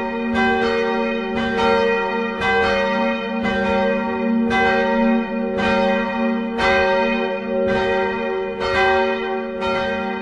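Church bells ringing in a peal: several bells of different pitches struck in turn, about once or twice a second, each strike ringing on under the next so the sound never dies away.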